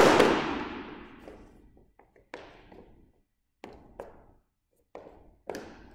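An old hockey stick hits the floor with a loud clatter that rings on and dies away over about a second and a half. Then about six quick, sharp footsteps tap on the floor as feet step back and forth over it.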